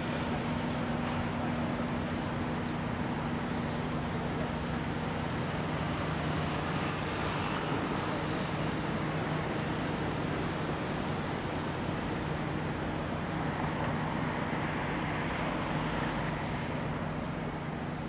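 Steady roadside traffic noise, with vehicles passing by and swelling now and then, over a steady low hum.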